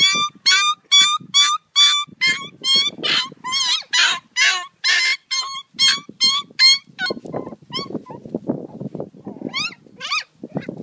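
Puppy yelping rapidly and high-pitched during rough play, about three yelps a second. After about seven seconds the yelps thin out to a few, over low rustling of scuffling movement.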